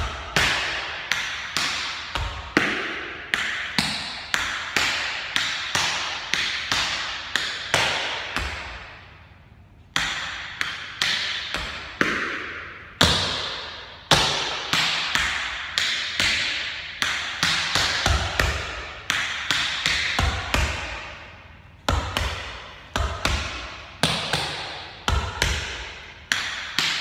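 Tap shoes' metal taps striking a hard studio floor in quick rhythmic runs of steps, shuffles and stamps, each click trailing a ringing room echo. The steps break off briefly about nine seconds in, then carry on.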